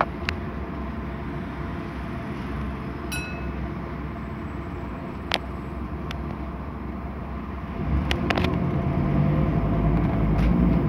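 Scania N230UD double-decker bus heard from the upper deck: its five-cylinder diesel engine runs steadily, with scattered rattles and clicks from the bodywork and a brief high tone about three seconds in. About eight seconds in the engine gets louder and heavier as it works harder.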